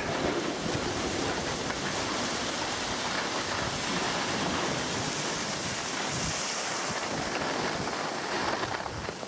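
Skis sliding over packed piste snow, a steady scraping hiss, mixed with wind rushing over the microphone.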